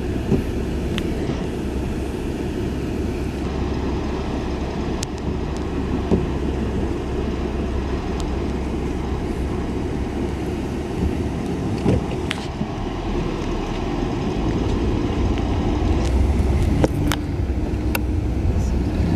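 Steady low rumble of a moving vehicle heard from inside the cabin, with a few faint ticks, growing a little louder near the end.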